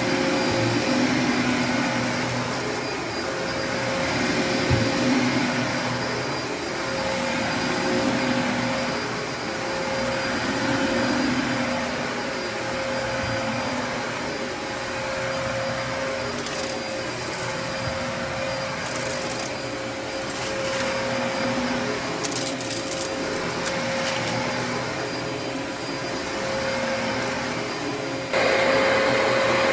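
Dyson DC33 upright vacuum cleaner running with a steady motor whine, its level rising and falling every couple of seconds as it is pushed and pulled. Brief crackles come through about two thirds of the way in, and it turns abruptly louder near the end.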